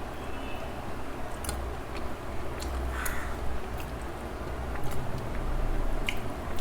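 A person chewing a mouthful of food, with scattered small clicks from the mouth and hands.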